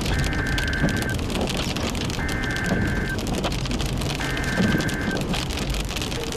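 Rain and hail pattering densely on a moving vehicle, over a steady low road rumble. An electronic tone beeps three times, each about a second long, about two seconds apart.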